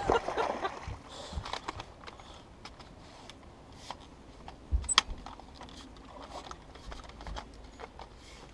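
Scattered light clicks and knocks of a landing net and fishing gear being handled aboard a boat, with one sharp click about five seconds in.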